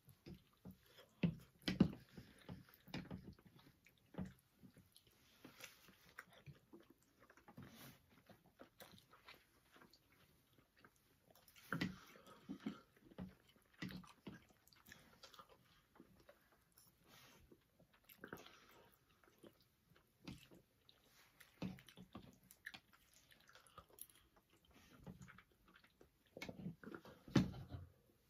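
Quiet eating sounds: pasta in meat sauce being chewed, with irregular light clicks of a fork against a plastic bowl.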